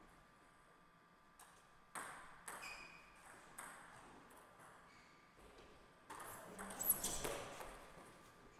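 Table tennis rally: the celluloid ball clicks sharply off rubber rackets and the table, with strokes about half a second apart, and a louder, denser burst of clatter near the end as the point is won.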